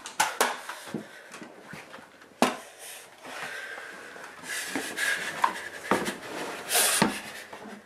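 Handling and movement noises in a small room: scattered clicks and knocks with rustling and breathy noise, and one sharp click about two and a half seconds in.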